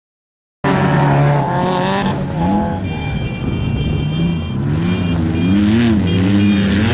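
Off-road desert racing vehicle engines revving up and down under throttle, cutting in abruptly about half a second in.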